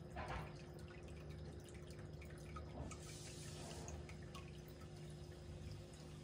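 Faint trickling and dripping of water from a running aquarium filter, over a steady low hum.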